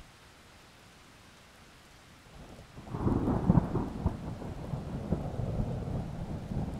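Steady rain falling, then a little over two seconds in a thunderclap builds and breaks into a loud, low rolling rumble with crackling, which keeps rumbling on under the rain.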